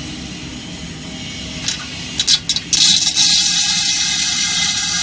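Vacuum homogenizing emulsifying machine running with a steady hum. A few sharp clicks come about two seconds in, then just under three seconds in a loud, steady hiss starts and holds.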